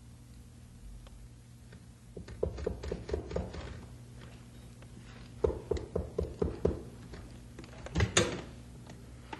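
Radio-drama sound effect of knocking on a door: a first cluster of raps, then a regular run of about six quick knocks, then a heavier thump near the end, over a low steady hum.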